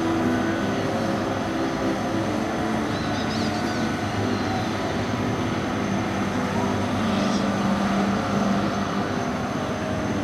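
Engine of a Friendship water-taxi boat running steadily, a low hum.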